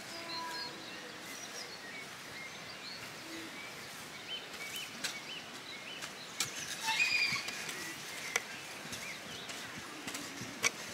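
Birds chirping in short repeated calls over steady outdoor background noise, with a garden hoe scraping and chopping into soil a few times, the loudest strokes about two-thirds of the way in and one sharp knock near the end.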